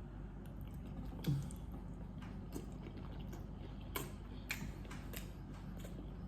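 A person chewing food close to the microphone: a few scattered wet mouth clicks and smacks over a steady low hum.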